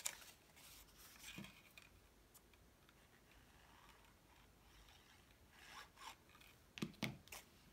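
Faint rubbing and rustling of cardstock as a freshly glued card flap is pressed and smoothed down with the fingers and a small handheld tool. A few light taps of paper and tool come through, one about a second in and a couple near the end.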